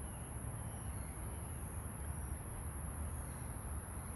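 Steady, high-pitched drone of an insect chorus, with an uneven low rumble beneath it.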